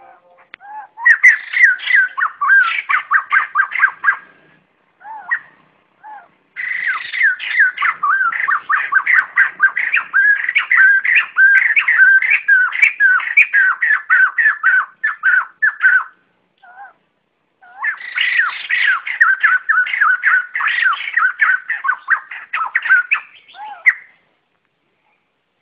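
White-crested laughingthrushes giving their flock-gathering call. It comes in three long bouts of rapid, repeated, bending notes, several a second, with short pauses between the bouts.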